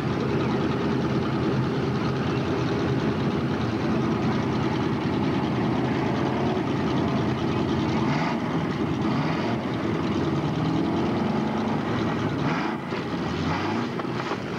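Dirt-track stock car engines running at race speed, a steady drone of several engines, with engine notes rising and falling as cars pass, most clearly in the second half.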